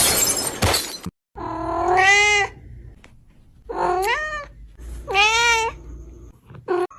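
A loud noisy burst lasting about a second, then a cat meowing three times in long rising-and-falling meows, with a short fourth call near the end.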